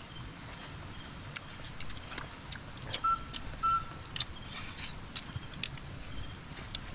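Scattered light crinkles and clicks of hands in a plastic bag of sticky rice and a spoon knocking on a metal pot and a plate, over a faint steady hiss. Two brief high chirps come a little after three seconds in.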